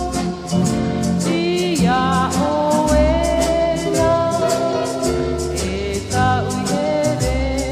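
Background music: a Tahitian song, with singing voices over instruments and a steady quick percussion beat.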